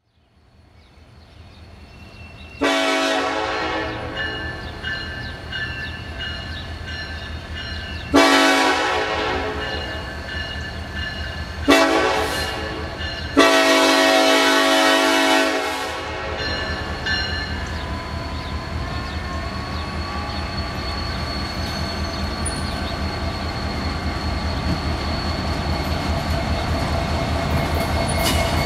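Locomotive air horn of NS #1067, an EMD SD70ACe, blowing the grade-crossing signal: long, long, short, long. The last blast is held. Underneath, the rumble of the approaching diesel locomotives and train grows steadily louder and carries on after the horn stops.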